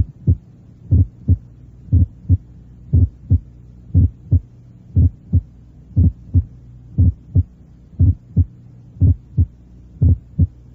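Recorded human heart sounds at about one beat a second, each beat a louder first heart sound followed about a third of a second later by the second heart sound, over a steady low recording hum. It demonstrates the abnormally split first heart sound that can occur in right bundle branch block.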